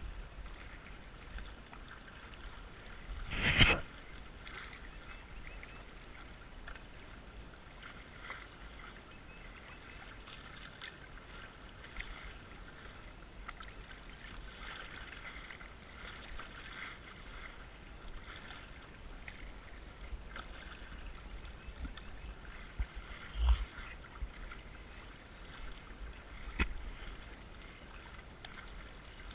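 Kayak paddle strokes and water splashing and lapping against a plastic kayak hull on fast-moving creek water. A louder splash comes about three and a half seconds in, and two shorter, sharper ones near the end.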